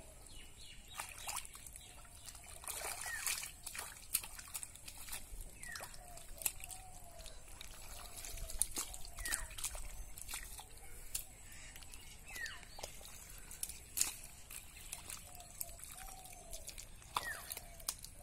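Bare hands working wet mud and muddy water: irregular squelches, wet slaps and small sloshes, with short sucking blips as the mud is pressed and pulled.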